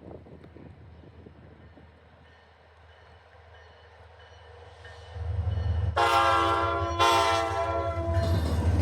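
An Alaska Railroad diesel locomotive approaching, its engine rumble swelling suddenly about five seconds in. The air horn then sounds two blasts of about a second each. Loud, noisy train running sound follows the horn.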